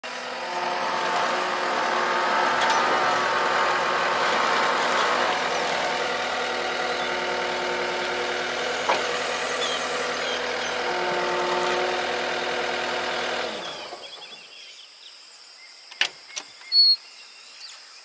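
John Deere 333G skid steer's diesel engine running steadily, then shut off abruptly about three-quarters of the way through. A few sharp clicks and knocks follow as the cab door is opened.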